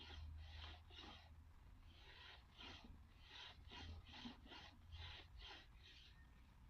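Faint, repeated strokes of a hand tool rubbing across wood, about two a second, in an uneven rhythm.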